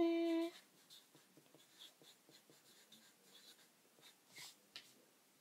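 A brief held vocal sound at the very start, then the soft scratching of a Sharpie felt-tip marker writing on paper in short strokes.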